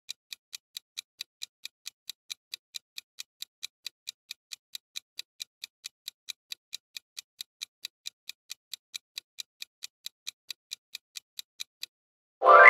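Quiz countdown timer sound effect ticking evenly, about three ticks a second. The ticking stops near the end and a loud chime sounds as the answer is revealed.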